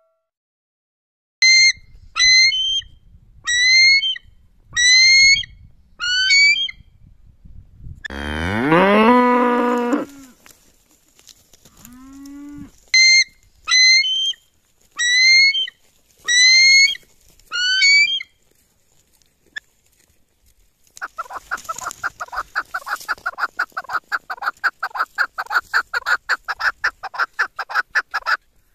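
A cow moos once in a long call that rises in pitch. Around it come two runs of five or six shrill, downward-slurred eagle calls. Near the end a partridge gives a rapid, rattling run of calls, many a second.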